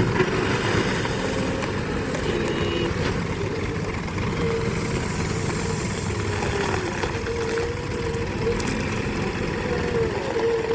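JCB backhoe loader's diesel engine running steadily, with a wavering whine over it through the middle.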